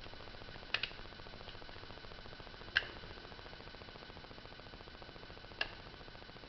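Small metal tool ticking against a spark plug while burned-on carbon deposits are scraped out of it: a few sharp clicks, a quick pair about a second in, one near the middle and one near the end.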